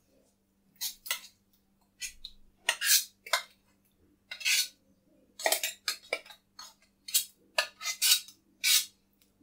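A metal spoon scraping and clinking against the inside of a steel mixer jar while scooping out thick ground spinach paste, in about a dozen short, uneven strokes. A faint steady hum runs underneath.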